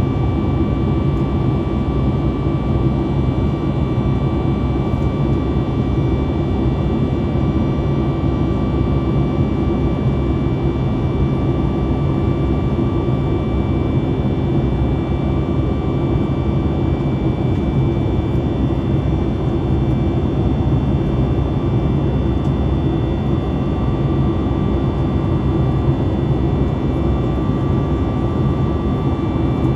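Cabin noise inside a Boeing 737 MAX 8 whose CFM LEAP-1B jet engines are running steadily: an even, loud engine and air rumble with a faint high whine on top.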